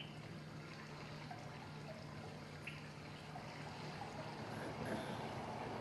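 Water trickling and dripping as a person is washed, with small drips, over a steady low hum. It grows a little louder near the end.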